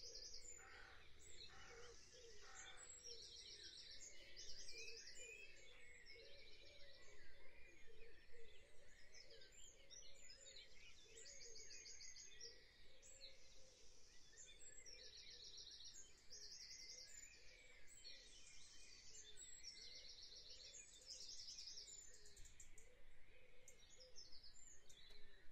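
Faint birdsong over low room noise: many short, high, rapid trills and chirps, repeated every second or so.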